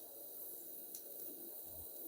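Faint steady hiss of a TIG welding arc, with one small click about a second in.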